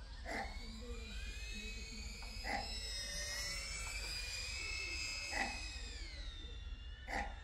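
DJI Avata drone's propellers whining, several pitches sliding slowly up and down together as the throttle changes. A dog barks four times, single barks a couple of seconds apart.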